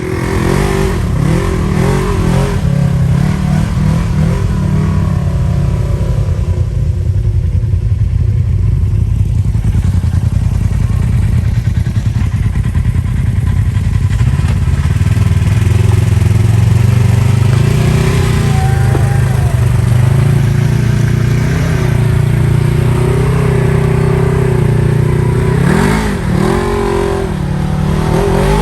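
Turbocharged Polaris RZR side-by-side's engine running hard under load, its pitch rising and falling with the throttle, with sharp revs a couple of times near the end.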